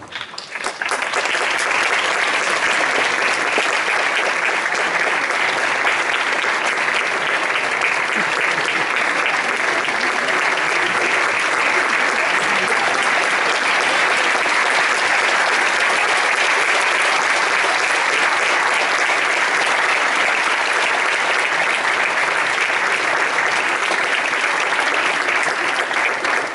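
Audience applauding, starting about a second in and holding steady as a dense clapping.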